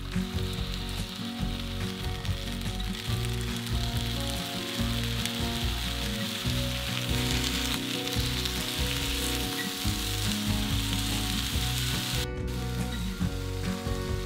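Eggplant pieces sizzling steadily as they fry in oil in a nonstick frying pan. There is a brief break in the sizzle about twelve seconds in.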